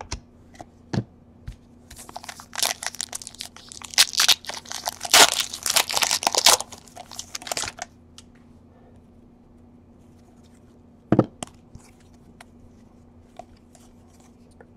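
Hands tearing open and crinkling the wrapper of a trading-card pack for several seconds, the loudest part, after a few light clicks of cards being handled. A single knock comes later, then light ticks of cards being shuffled through.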